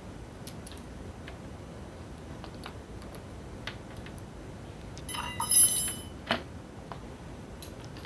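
Light clicks and taps of small hard parts being handled, with a loud, brief metallic jingle about five seconds in, followed by a single sharp click.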